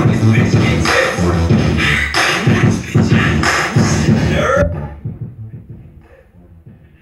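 Dance music with vocals and a strong regular beat playing, cutting off abruptly about two-thirds of the way through.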